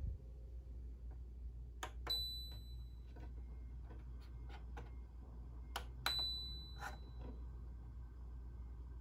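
Two short high electronic beeps from a cado LEAF 130 air purifier's control panel, about four seconds apart, each acknowledging a button press as the operating mode is changed. Soft clicks of fingertips on the buttons come around each beep, over a steady low hum.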